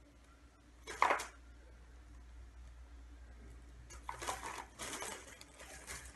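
Small objects handled and put into a gift bag: a short sharp clatter about a second in, then a couple of seconds of rustling and handling noise near the end.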